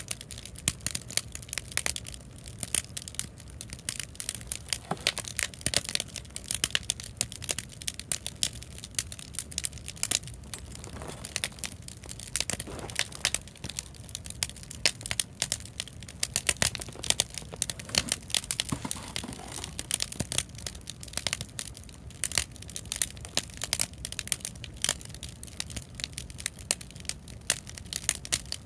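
Bonfire of scrap lumber crackling, with dense, irregular snapping and frequent sharp pops over a steady low rumble.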